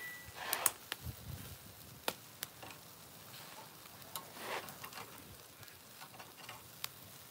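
Meat sizzling on a barbecue grill, with several sharp clicks of metal tongs as the pieces are turned.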